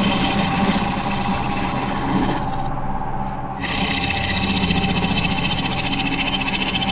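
Wood lathe running with a steady hum while a turning tool cuts the spinning wood with a scraping hiss. The hiss drops away for about a second in the middle.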